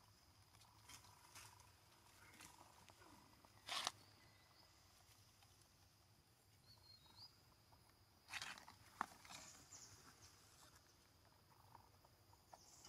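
Near-quiet forest background with a faint steady high tone and a few brief rustles, the loudest about four seconds in and a couple more around eight to nine seconds in.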